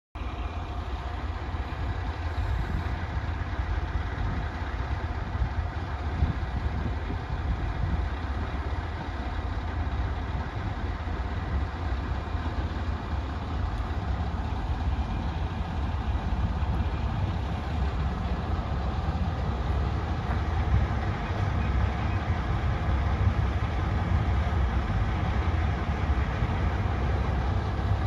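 Diesel engine of a JR Shikoku 1550-type railcar idling at the platform: a steady low rumble with a faint hum over it, growing slightly louder near the end.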